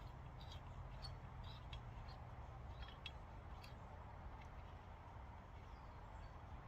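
Faint, scattered small metal clicks and ticks of a bolt being threaded by hand into a cover plate on a motorcycle engine, over a low steady hum.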